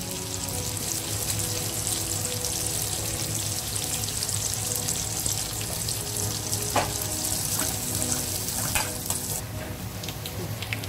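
Sliced shallots and curry leaves sizzling in hot coconut oil in an aluminium pan, frying the seasoning (tempering) for a fish curry. A steady high frying hiss with two sharp clicks of the metal spoon against the pan; the hiss drops near the end.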